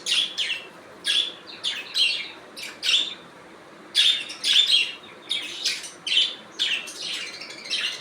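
Budgerigars chirping and twittering in quick uneven bursts of short high calls, with a short lull a little before the middle.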